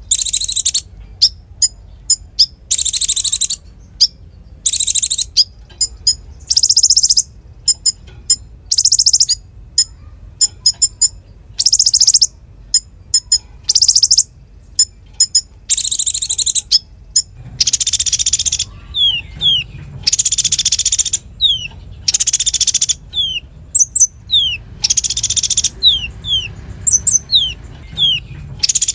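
Konin songbird singing in loud, rapid, high trilled bursts, each lasting under a second and repeating every second or two. In the second half, sharp falling whistle notes are mixed in between the bursts.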